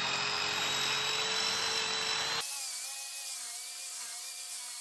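Restorer handheld drum sander with its sanding drum wheel running against the corner of a new wood beam, a steady motor whine over sanding hiss as the edge is worn round to look aged. About halfway through the sound abruptly thins and the pitch starts to waver.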